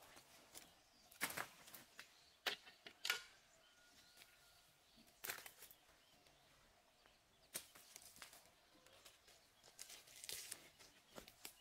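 Ferns and leafy weeds being pulled and torn out by hand: short, sharp rustling rips that come singly and in small clusters every second or two, with quiet between.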